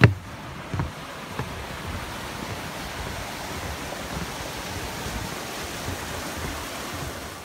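Footsteps thudding on the planks of a wooden footbridge, the heaviest right at the start and two lighter ones in the first second and a half. A steady rushing noise then runs under the walking.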